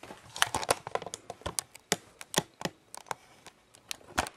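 Stiff paper posters being handled and laid out on a wooden floor: an irregular run of light taps and clicks.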